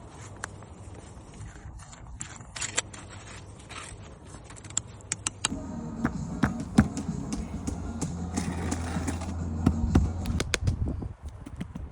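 Sharp clicks, knocks and scraping, joined about halfway through by an engine running steadily for several seconds before it drops away near the end.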